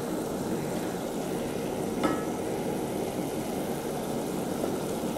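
Browned onions in a little water sizzling and bubbling at a boil in an aluminium pot, stirred with a wooden spoon, with one light knock about two seconds in.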